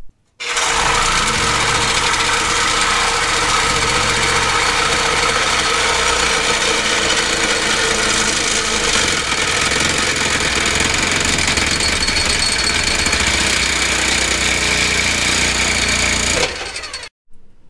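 Reciprocating saw with a Diablo blade cutting through the truck's exhaust pipe, running at a steady speed. It stops abruptly shortly before the end.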